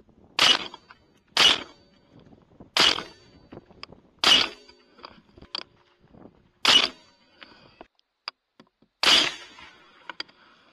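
Six rifle shots from a .300 AAC Blackout rifle, each a sharp crack, spaced one to two and a half seconds apart, with faint small clicks between them.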